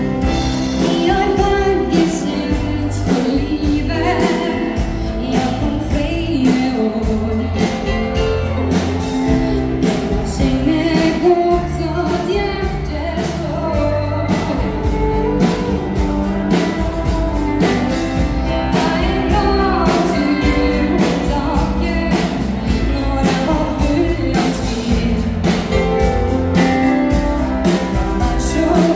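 Live dance band playing amplified dance music with a steady drum beat, bass, keyboard and guitar, and a singer singing the lead.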